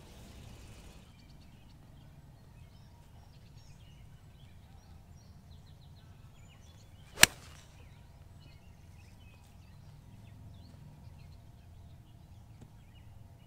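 A golf iron striking the ball on a full swing: one sharp crack about seven seconds in.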